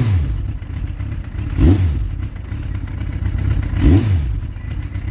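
Suzuki Impulse 400 motorcycle engine idling low and being blipped three times, each a short rev up and back down to idle. The engine is still cold and running on a newly fitted pilot jet set.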